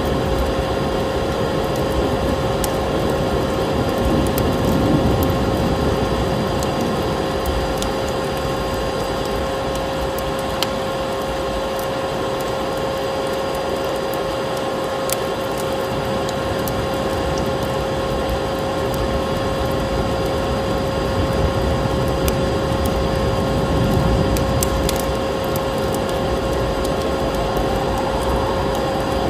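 Steady hum of a vacuum cleaner motor on one constant pitch, over the crackle and pops of a burning wood fire and a low rush of wind that swells twice.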